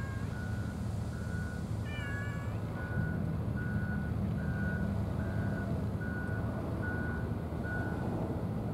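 A vehicle's reversing alarm beeps steadily on one pitch, about three beeps every two seconds, over the low rumble of an engine that grows louder about three seconds in. A cat meows briefly at the very start and again about two seconds in.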